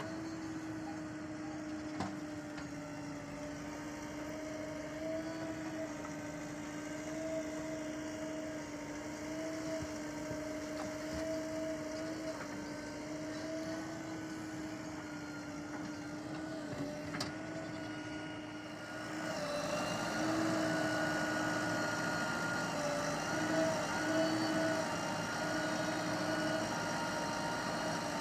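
Heavy diesel machinery running steadily with a constant pitched hum. It grows louder and rougher about two-thirds of the way through, as the machine works harder.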